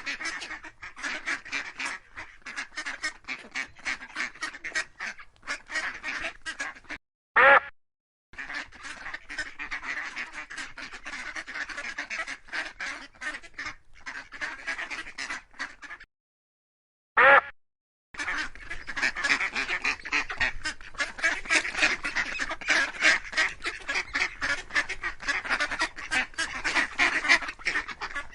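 A flock of ducks quacking, many calls overlapping in quick succession. The calling breaks off twice briefly, each pause holding one short, louder call.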